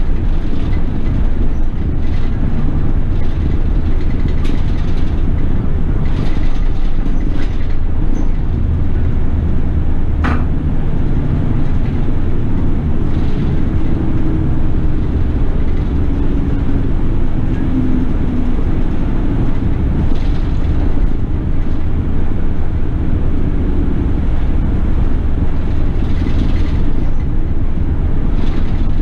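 Toei city bus running, with a steady low engine and road rumble. There is a single sharp click about ten seconds in, and a faint whine that rises and falls in the middle.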